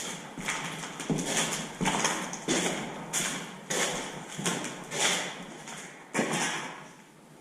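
Footsteps walking on a hard floor, about three steps every two seconds, each with a short echo; they stop near the end.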